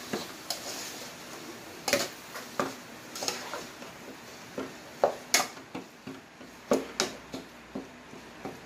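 Metal cooking spoon scraping and clinking against the inside of an aluminium pot as ground pork is stirred and broken up while it cooks, in irregular strokes about two a second.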